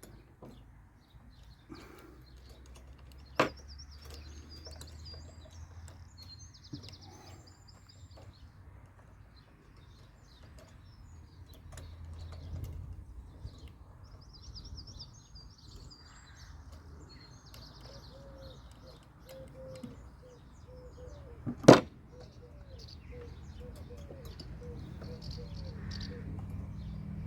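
Birds chirping in the background, with two sharp knocks, one a few seconds in and a louder one about two-thirds of the way through, over a low steady hum.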